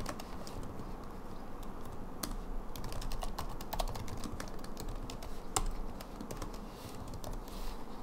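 Typing on a computer keyboard: a run of irregular key clicks, with one louder keystroke a little past the middle.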